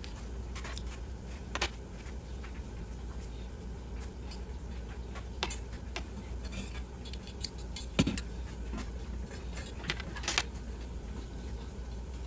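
Small metal parts being handled as a new thermocouple is fitted into a gas water heater's burner assembly: scattered light clinks and taps, with a sharper knock about eight seconds in and two more near ten seconds, over a steady low hum.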